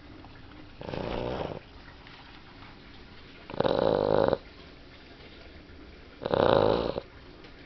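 A sleeping puppy snoring: three snores, each under a second long and about two and a half seconds apart, the first one softer than the other two.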